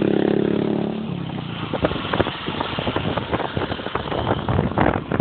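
A motor vehicle running. A steady pitched tone holds for about the first second, then gives way to rough crackling noise.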